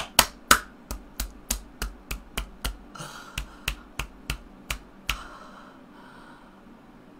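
A fist pounding repeatedly on a hard surface: about fifteen sharp blows, roughly three a second with a short break near the middle, stopping about five seconds in.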